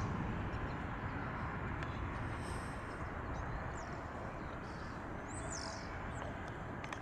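Boeing 737-800's CFM56 jet engines heard from beside the runway as the airliner rolls out after landing: a steady, broad rumble that slowly fades.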